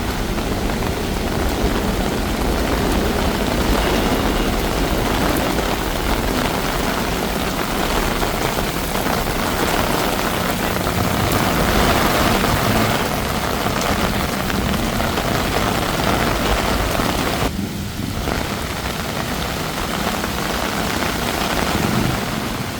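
Rain falling steadily on a street, an even hiss with a low rumble underneath. The rain briefly drops away about three-quarters of the way through.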